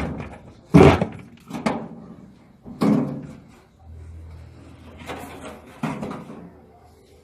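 About five irregular knocks and thumps as a washing machine part is turned over and tapped to loosen it, the loudest about a second in.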